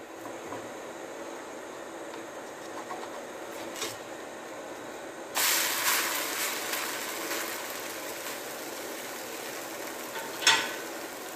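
Thin batter pancake frying in a hot cast-iron pan with a steady sizzle; about five seconds in the sizzle jumps suddenly loud as the pancake is flipped onto its uncooked side, then slowly eases. A short clink near the end from the ladle in the glass batter bowl.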